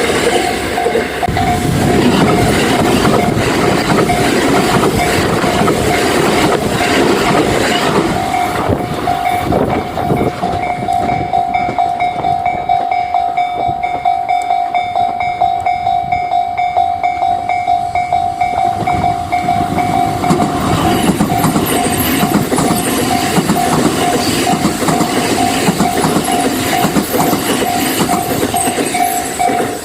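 Japanese level-crossing warning bell ringing steadily while a train passes, its wheels clattering over the rail joints.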